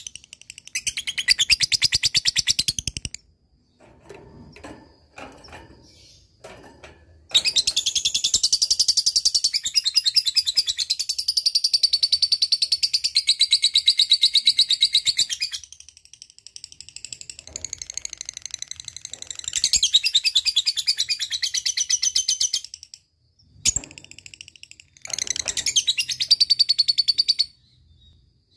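Lovebird ngekek: long runs of fast, high, chattering trill, four in all, the longest about eight seconds, with scattered short calls in the pauses between.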